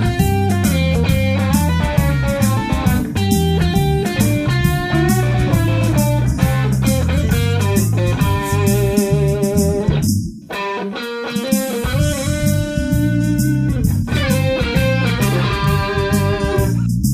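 1967 Fender Telecaster played through a 1968 Marshall 18-watt Bluesbreaker into a Celestion T652 speaker: a run of single notes and chords with a short break a little after ten seconds, then held, ringing notes.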